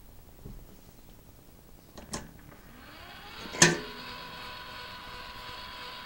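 Cylinder phonograph being started: a click about two seconds in, then a rising whir as the mandrel spins up, and a sharp clack a little past halfway as the reproducer is set down on the cylinder. After that comes the steady surface hiss of the Pathé cylinder turning, with a faint steady hum, before any music plays.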